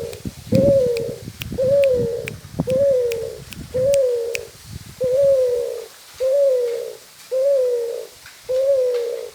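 Spotted dove (tekukur) cooing over and over, about one short low coo a second, each note rising then falling in pitch. A low rumble runs under the first few seconds, with faint clicks now and then.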